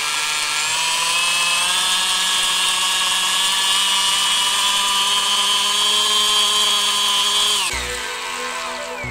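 Brushless electric motor (2215, 3200 kV) of a small 3D-printed RC outboard whining as it drives the propeller in water, over a hiss of churned water; its pitch steps up twice as the throttle goes from half to full. Near the end the motor winds down with a falling whine, as music with a deep beat comes in.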